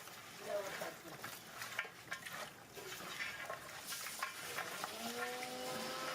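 Food frying in a large cooking pot while it is stirred, with scrapes and short clicks of the ladle against the pot. About five seconds in, a steady humming tone starts.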